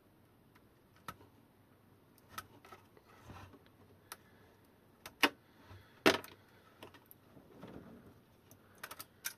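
A few scattered sharp clicks and snaps from side cutters snipping a cable tie and from handling wires inside a plastic battery case, the loudest about six seconds in.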